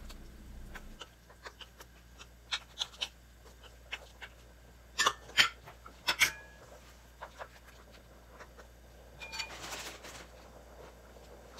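Scattered light knocks and clicks of utensils being handled at a wok, with a few sharper, briefly ringing clinks about five to six seconds in and a short soft rustle near the end.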